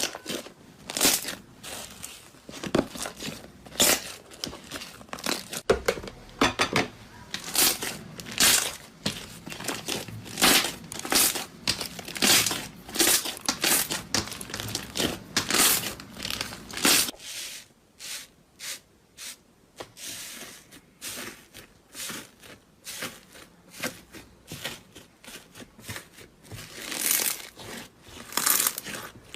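Slime being worked by hand, giving a run of short crackling, crinkling pops about once or twice a second; a little over halfway through they become shorter, quieter and more scattered.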